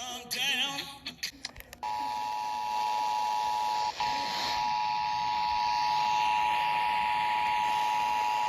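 Emergency Alert System attention signal: a loud, steady two-tone electronic beep that begins about two seconds in, after a few short electronic chirps and clicks. It drops out for a moment about four seconds in.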